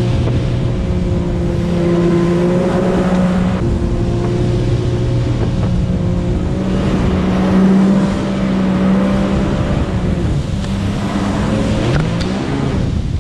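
Jet ski engine running hard at speed, its note holding steady and rising briefly near the end, over the hiss of the hull's spray.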